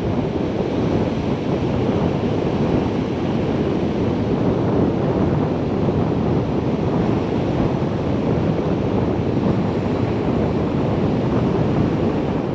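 Ocean surf breaking and washing up a sandy beach, with steady wind noise on the microphone.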